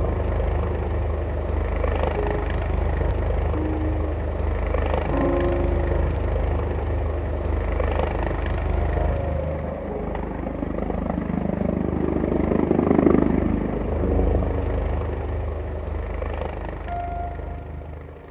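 Rescue helicopter hovering close by: a heavy steady rotor and engine noise that swells to its loudest about two-thirds of the way through, then fades near the end.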